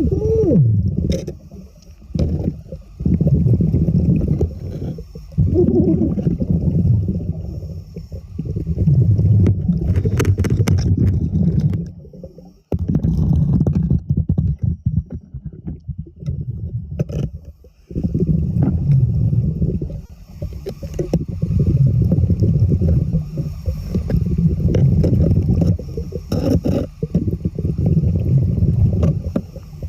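Muffled underwater rumbling and gurgling in repeated surges a few seconds long, with brief lulls between them.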